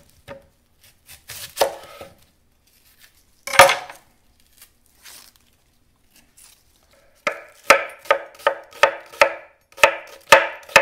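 Kitchen knife cutting a sweet onion on a wooden cutting board: a couple of separate cuts, a pause, then steady quick chopping at about three strokes a second from about seven seconds in.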